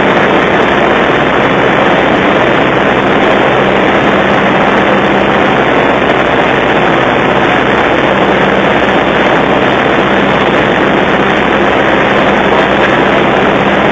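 Cessna 152's four-cylinder Lycoming O-235 engine and propeller running steadily in cruise, a loud, unchanging drone with a low hum, heard from inside the cabin.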